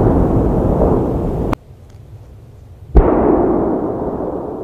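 Fireworks: the rumble of shell bursts cuts off abruptly about one and a half seconds in, and after a short lull a single loud bang about three seconds in is followed by a long fading rumble.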